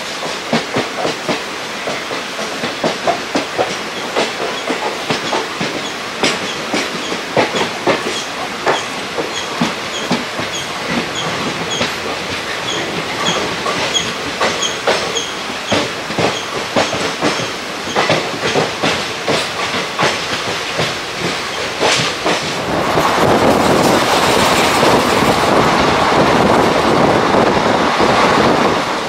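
Wheels of ICF passenger coaches clacking over rail joints, heard from on board a moving express train. Near the end a louder, steady rushing noise takes over for about six seconds and then cuts off suddenly.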